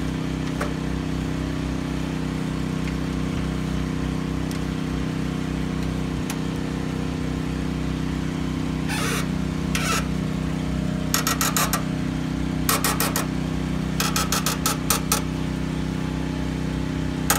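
A steady low engine drone runs throughout. From about nine seconds in come several quick runs of sharp clicks from hands working the wiring in a breaker panel.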